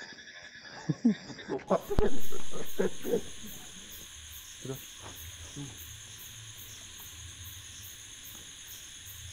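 Night insects chirping in a steady, high-pitched, evenly pulsing chorus. It takes over about one and a half seconds in, when a short stretch of music cuts off. Brief bursts of voices come in the first few seconds.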